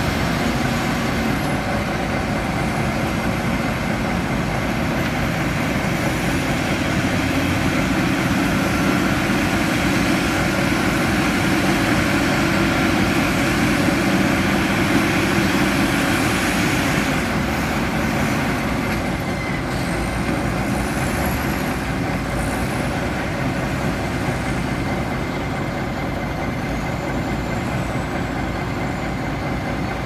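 Wheel loader's diesel engine working under load as it pushes and scoops soil: a steady heavy rumble that swells in the middle and eases a little past halfway.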